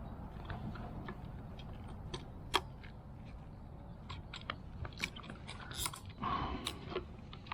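Scattered small clicks and light knocks of hand work on a car's fuel pump assembly, with one sharper click about two and a half seconds in and a short scrape near the end.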